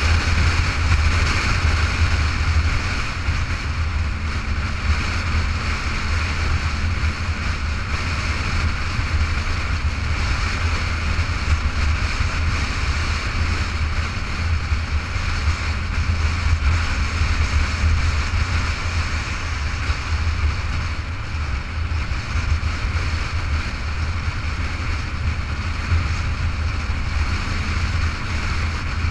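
Steady wind rush and motorcycle road noise at cruising speed, heard through a camera mounted on the bike, with a heavy low rumble of wind on the microphone.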